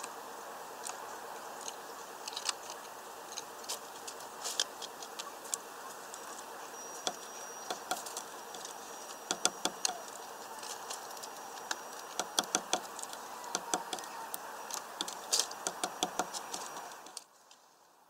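Great tits pecking and hammering at fat in a plastic mesh feeder and hopping on the perches: irregular sharp taps and clicks, some in quick runs, over a steady background hum that cuts out about a second before the end.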